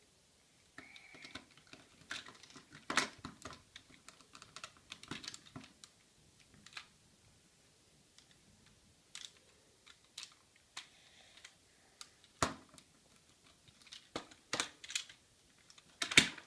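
Plastic Bumblebee Transformer toy being twisted and folded by hand: irregular clicks and clacks of its parts, with a few louder snaps near the end.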